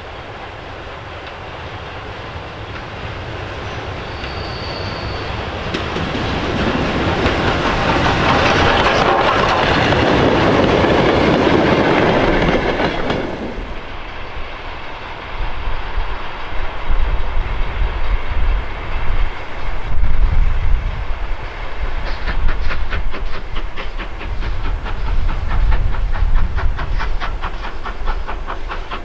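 Steam locomotive approaching and passing, its wheels rumbling louder over the rails to a peak about halfway through. It then pulls away working hard, with a heavy low rumble and, in the last several seconds, a quick regular beat of exhaust and wheel noise.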